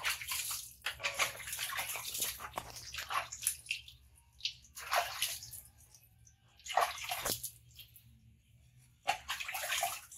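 Water scooped by hand from a basin and splashed and poured over a wet baby monkey during its bath: a long stretch of splashing at first, then several shorter splashes.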